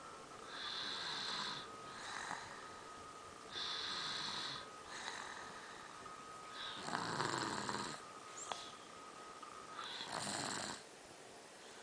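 Snoring: four hissy, rasping breaths about three seconds apart. The one near the middle is the loudest and deepest.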